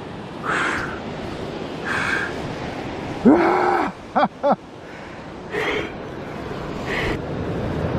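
A man's heavy breathing and gasps, with a drawn-out wordless groan about three seconds in followed by a quick run of short voiced sounds, over the steady wash of surf on rocks.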